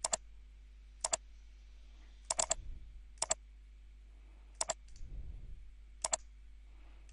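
Computer mouse clicks, each a sharp press-and-release pair, about six times over several seconds, over a faint steady electrical hum.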